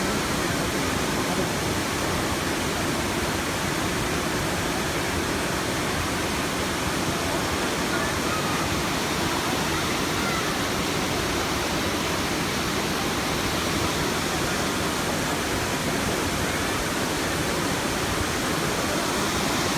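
Elephant Falls, a waterfall, rushing steadily: a constant roar of falling water.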